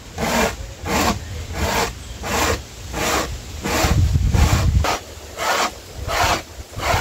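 Dry corn rasped up and down a homemade punched-tin grater on a wooden board, grinding it into meal: a regular scraping stroke about one and a half times a second.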